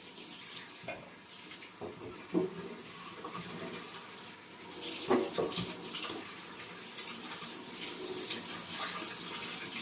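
Water running from a kitchen tap, a steady splashing hiss that grows heavier about halfway through.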